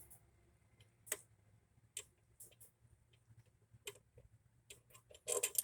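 Small ratchet clicking in short, uneven bursts while a 10 mm bolt on the EGR valve is backed out, with a louder cluster of clicks and clatter near the end.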